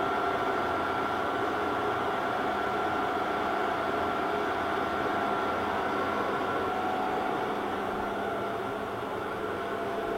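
Steady mechanical hum of running machinery, with constant high whine tones over an even rumble; nothing starts, stops or changes.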